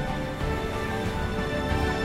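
Background music: held melodic tones over a steady low accompaniment.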